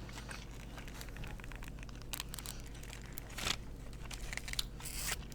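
Plastic snack packaging crinkling and crackling as it is handled, in scattered small rustles with a louder crackle about three and a half seconds in.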